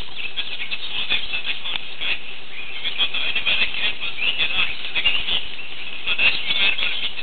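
Honey badgers squealing and chattering: a continuous run of high-pitched calls, mixed with many short clicks and scratches.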